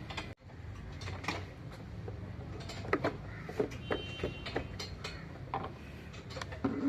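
Scattered metallic clicks and knocks of hand tools and parts being handled while fitting a new oil sump to a Fiat Punto engine, over a steady low hum.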